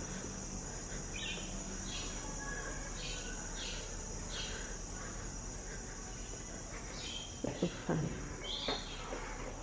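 Cicadas droning steadily in a high band, with a bird giving short falling chirps about once a second. A few sharp knocks near the end.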